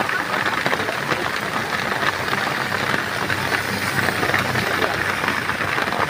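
Steady rain falling, a dense patter of drops close by, with a motorcycle engine running faintly underneath.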